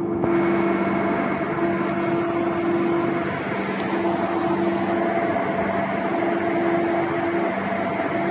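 Fishing boat's deck machinery running steadily while the net is hauled: a low hum and hiss with a whining tone that drops out briefly every second or two.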